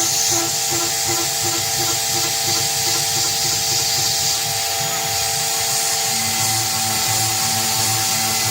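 CNC-converted PM-25 milling machine cutting with a 1/4-inch three-flute carbide end mill: a steady machine whine over a high hiss. A pulsing about twice a second runs through the first half, and a lower pulsing pattern sets in about two-thirds of the way through as the cut changes.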